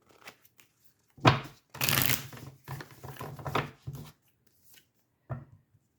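Tarot cards being shuffled and handled: a short sharp card sound about a second in, a dense rustling stretch of shuffling after it, and another brief card sound near the end.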